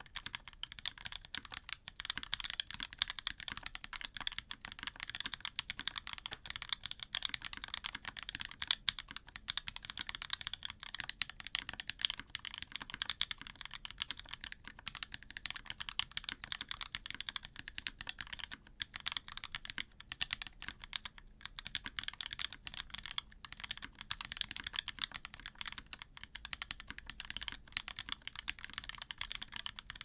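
Continuous typing on a Merisi Sessantacinque 65% custom mechanical keyboard, top-mounted with a carbon fiber plate, lubed and filmed OP Black switches and GMK keycaps: a steady stream of crisp keystroke clacks with a few short pauses.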